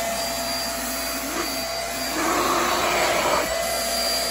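Queen Made corded handheld vacuum cleaner, fitted with its extension tube and floor nozzle, running steadily while pushed over a shag carpet: a constant high motor whine over rushing air. It gets slightly louder about two seconds in as the nozzle moves.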